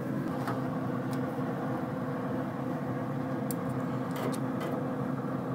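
Steady hum of a running pellet smoker's fan, with a few light clicks of metal tongs against the grill grate as wings are flipped.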